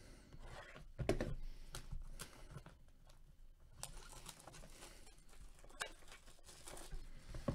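Plastic shrink wrap being torn open and peeled off a sealed trading-card hobby box, with irregular crinkling and rustling. A louder bump comes about a second in.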